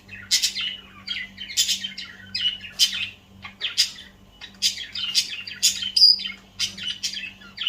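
Budgerigar chattering and warbling: a quick, near-continuous run of short chirps with only brief pauses, and a short held whistle about six seconds in.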